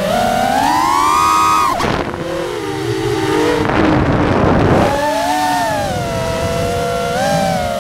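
FPV quadcopter's brushless motors whining, the pitch sliding up and down with throttle. Around two seconds in the whine drops and breaks up into a rough rushing noise through the middle, then climbs back to a steady whine.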